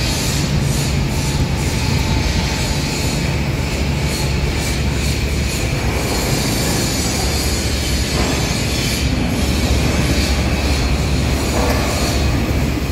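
Steady loud machine noise: a low hum under a constant hiss, with no clear strokes or changes.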